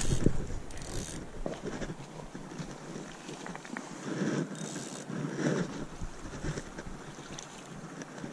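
Wind buffeting the microphone, strongest in the first half-second, with a hooked fish splashing at the surface and a landing net being drawn through the water.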